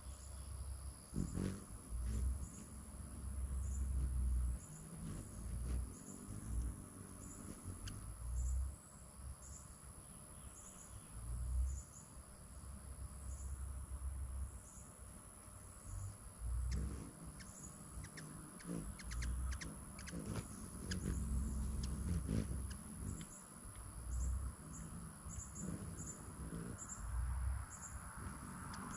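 Hummingbirds around a feeder: short high chips repeated every half second or so through much of the stretch, over low rushing sounds that swell and fade.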